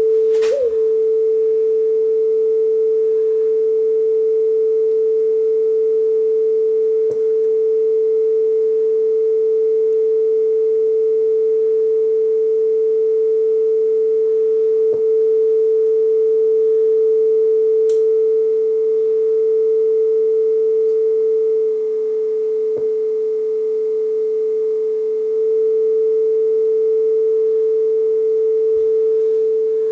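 Steady 440 Hz test tone from a speed-calibration test tape playing on a NAD 6155 cassette deck, with a few faint ticks. The tone sits at about 441 Hz, a touch fast, while the capstan motor speed is trimmed toward pitch.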